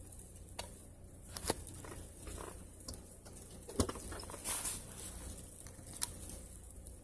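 A few sharp, isolated clicks and taps, a second or more apart, from handling a screwdriver and fitting its bit while working on the door handle.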